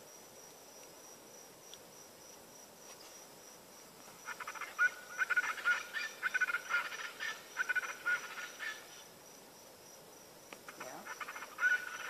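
Chachalacas calling back and forth in their mating call, a rapid run of repeated calls from several birds. The calling starts about four seconds in, breaks off for a couple of seconds, and picks up again near the end.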